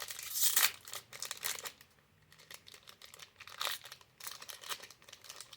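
Crinkling and tearing of a Yu-Gi-Oh booster pack's foil wrapper being opened by hand: a burst of crackling about half a second in, then scattered rustles.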